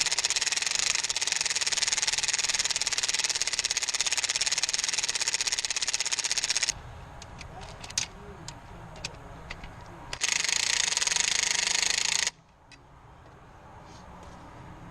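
Power impact wrench hammering in two bursts, one long and one about two seconds long, with a few scattered clicks between them, while a nut on the belt drive is run down and tightened after the belt is refitted.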